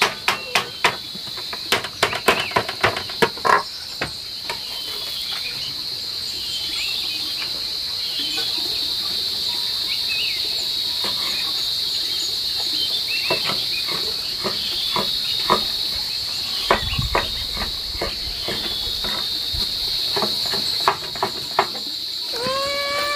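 Steel cleaver chopping on a wooden cutting board, a quick run of sharp knocks in the first few seconds and scattered cuts again in the middle, mincing pork and then cutting cherry tomatoes. Under it a steady high insect drone runs throughout, and near the end a short animal call rises and bends in pitch.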